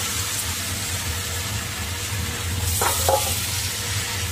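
Sliced zucchini and scrambled egg sizzling in a hot stainless steel wok as a silicone spatula stirs them, over a steady low hum.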